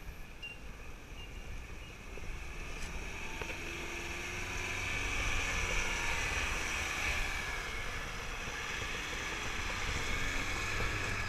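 Four-wheel-drive pickup truck driving slowly through mud. Its engine and tyres grow louder as it approaches and passes close by.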